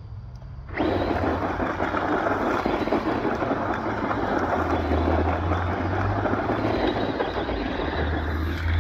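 Traxxas Rustler RC truck driving hard over loose gravel, its spinning tyres throwing stones: a loud, rough gravelly rush that starts suddenly about a second in.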